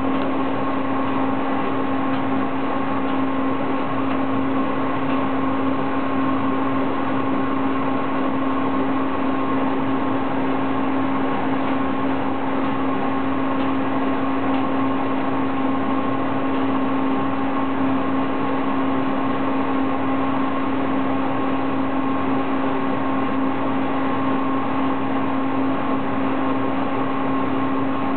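Clothes dryer running: a steady mechanical hum with a constant low tone and an even rushing noise over it.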